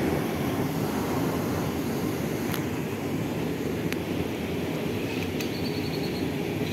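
Steady low rushing of flowing river water, with a few faint ticks.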